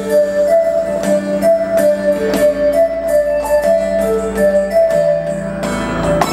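Roland V-Drums electronic drum kit and sampling pad playing music: a keyboard-like melody and sustained chords over regular sharp drum hits, growing fuller near the end.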